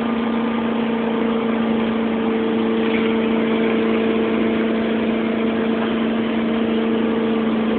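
Motorboat engine running steadily at speed while towing, one unchanging drone with a constant rushing noise over it.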